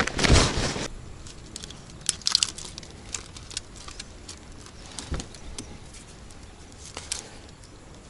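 Rustling as a bag of fishing tackle is rummaged through in the first second, followed by scattered small clicks and taps as lures and a plastic tackle box are handled.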